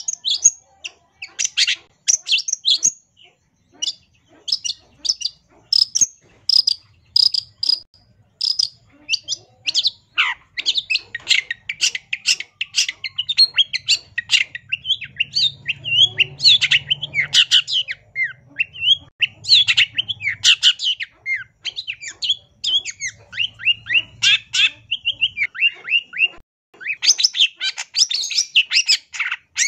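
Long-tailed shrike singing a fast, varied song of sharp chattering notes and short whistled glides, packed with mimicked phrases; the notes run almost without a break from about ten seconds in.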